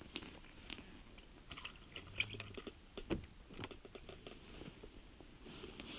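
Faint, irregular small clicks, crunches and rustles of a person moving and handling gear in an ice-fishing tent, with a short low hum about two seconds in.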